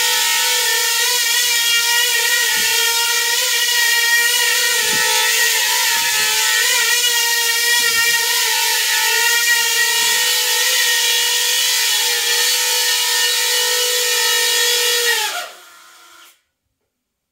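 Coaxial copter's contra-rotating propellers and motors whining steadily in hover, the pitch wavering slightly. The whine dips and falls away about fifteen seconds in.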